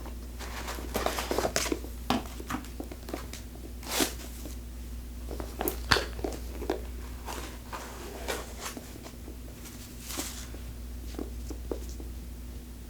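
Handling noise from opening a quilted leather handbag: scattered rustles and light clicks, with the loudest rustles about a second in and around four, six and ten seconds in.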